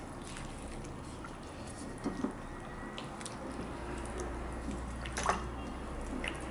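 Wet squelching and small squishes as a gloved hand kneads marinated raw chicken pieces in a glass bowl, with scattered short wet clicks; the loudest comes about five seconds in.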